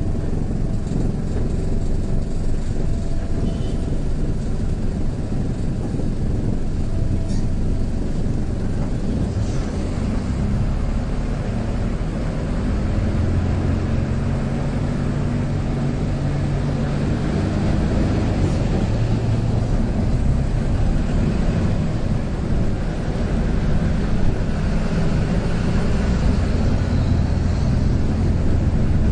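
City bus in motion, heard from inside the cabin: a steady low rumble of engine and road noise, with the engine's hum standing out more from partway through.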